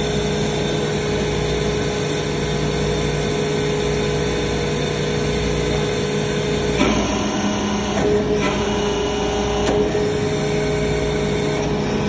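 Hydraulic power unit of an iron-chip briquetting press running with a steady hum while the ram presses metal chips in the hopper. Its tone shifts about seven seconds in, and a few light clicks follow.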